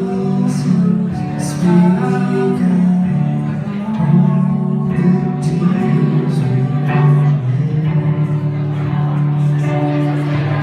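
Live music: a male singer holding long sung notes over guitar accompaniment.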